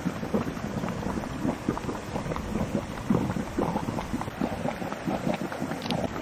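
Geothermal hot spring at the boil, its water bubbling in quick, irregular pops.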